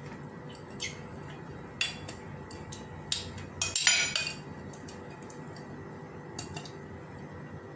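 Stainless steel tumbler being handled and greased: a few light metallic clinks and knocks, the loudest a short cluster with a brief ring about four seconds in.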